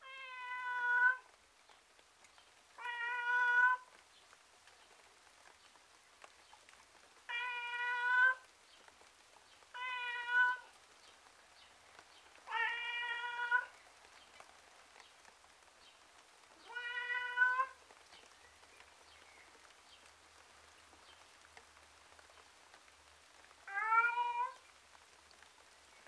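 A tomcat meowing miserably: seven drawn-out meows of about a second each, spaced a few seconds apart, with the last one rising in pitch. A faint steady background hiss fills the gaps.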